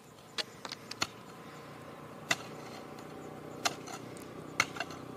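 A hoe biting and scraping into grassy soil, about five sharp knocks a second or so apart, irregularly spaced. A low steady hum slowly builds underneath.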